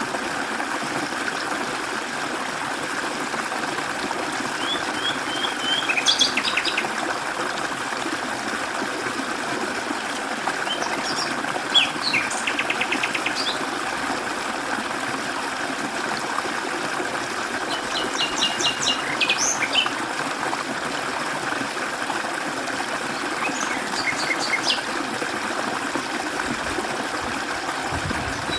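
Mountain stream water rushing steadily over rocks. Songbirds call over it in four short bouts of high chirps and rapid trills.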